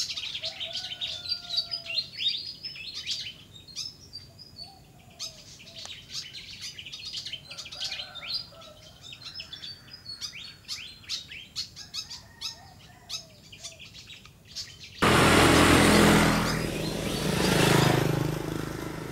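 Birds chirping and twittering in quick short calls, with a lower whistled call coming back every few seconds. About fifteen seconds in, a loud rushing noise cuts in suddenly and drowns them out.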